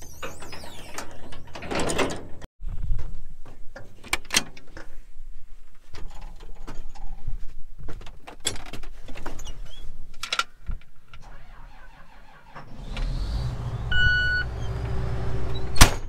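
Scattered clicks and knocks of climbing into a John Deere combine's cab and handling things inside. About thirteen seconds in, the combine's diesel engine comes on and runs steadily, with a short electronic beep from the cab a second later and a sharp click near the end.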